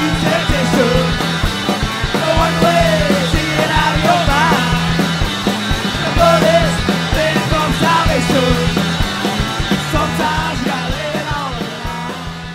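Rock music with drums, a steady bass note and a melodic line on top, tapering off near the end.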